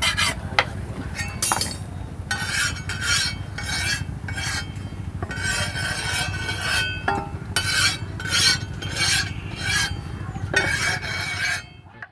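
Steel fish-knife blade being filed or sharpened by hand: a rasping metal scrape repeated in quick strokes a little under a second apart, over a steady low hum. It cuts off suddenly near the end.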